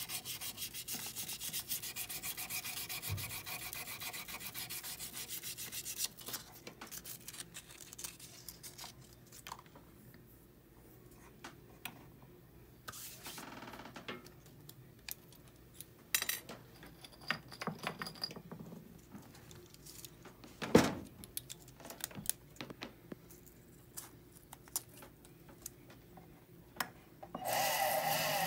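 Rapid rubbing strokes of a small abrasive sanding stick on a hollow gold bangle for the first several seconds. Then scattered clicks and taps of tools handled on the bench, with one louder knock about two-thirds of the way through. Near the end a jeweller's rotary handpiece starts up with a steady whir.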